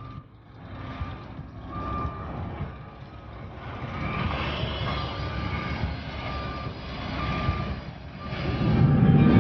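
Backup alarm of construction equipment beeping at a steady pitch about once a second, over outdoor noise; a louder low rumble swells near the end.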